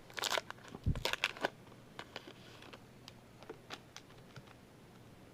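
Baseball trading cards being handled and flipped through: a quick run of light clicks and slaps with a soft thump about a second in, then sparser clicks that die away.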